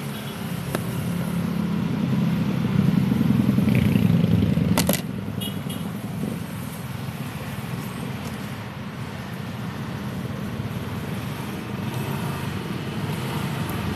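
A motor vehicle engine running close by, growing louder over the first few seconds and then dropping off sharply about five seconds in, leaving a steady low hum. A couple of light clicks from a spoon scooping powder in a plastic tub.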